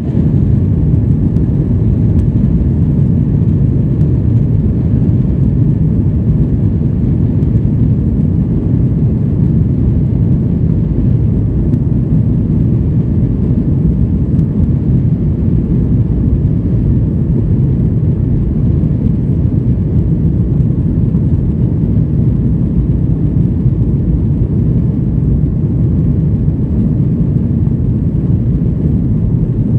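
Boeing 737-900 with CFM56-7B turbofan engines running: a loud, steady low rumble that holds even throughout, with no spool-up or change in pitch.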